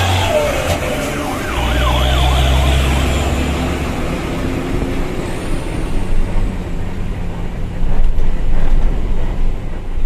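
Dump truck's trumpet air horns sounding one steady blast for about two and a half seconds, soon after the start. After that comes the truck's diesel engine and road noise, heard from inside the cab, getting louder and uneven near the end.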